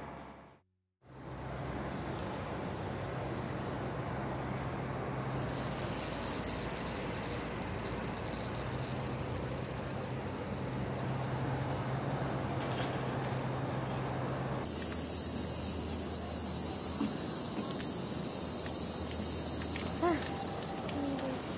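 Cicadas singing in a steady, high-pitched chorus after a brief silence, growing louder about five seconds in and changing abruptly to a louder, fuller chorus about fifteen seconds in.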